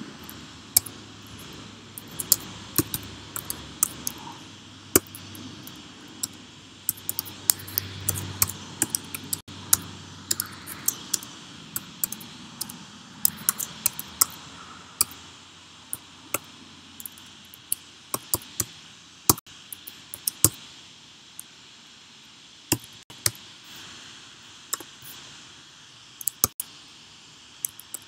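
Typing on a computer keyboard: irregular runs of key clicks with short pauses between them, over a steady faint hiss.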